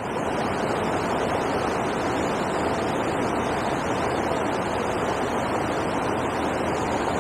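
Water pouring over a river weir, a steady rushing noise with no change throughout.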